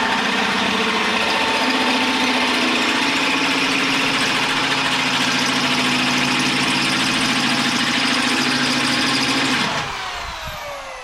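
Power drill motor running steadily at full speed, then released about ten seconds in and spinning down with a falling whine. This is drilling 7/16-inch holes through the RZR's steel frame.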